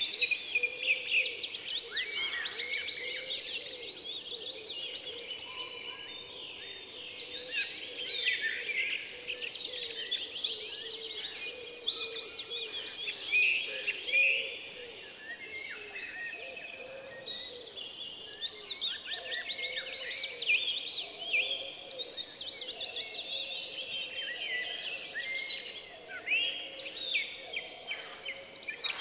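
Many birds chirping and singing, a busy chorus of short, quick calls that runs on without a break, louder for a few seconds around the middle.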